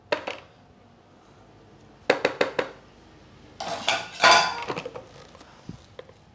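Spatula knocking and scraping against a food-processor bowl while thick bean dip is scraped out. A quick run of four or five knocks comes about two seconds in, and a longer, louder scrape follows about a second later.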